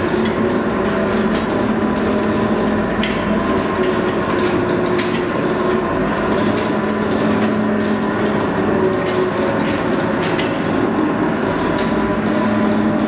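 Steady workshop machinery running, a constant hum with a few held tones, broken by a few sharp clicks a few seconds apart.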